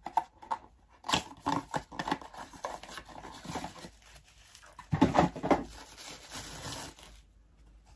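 Cardboard advent calendar packaging handled and opened by hand: scattered rustling, scraping and tearing of card, with a louder flurry about five seconds in.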